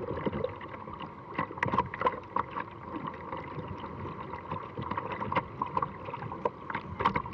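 Whitewater rushing over a river ledge as a steady hiss, with frequent sharp splashes and slaps of water close around a kayak.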